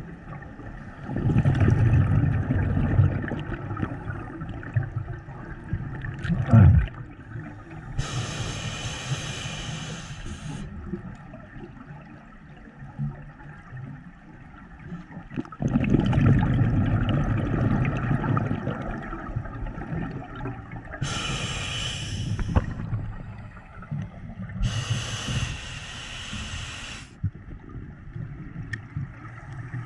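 A scuba diver breathing underwater through a regulator: two long gushes of exhaled bubbles, and three sharp hisses of the regulator on the in-breaths in between. A single thump about six and a half seconds in is the loudest moment.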